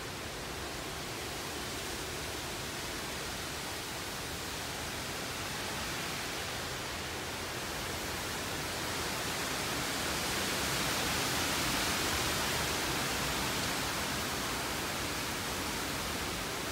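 Tropical-storm wind rushing through the trees. It is a steady roar of wind in the foliage that swells into a stronger gust about ten seconds in, then eases slightly.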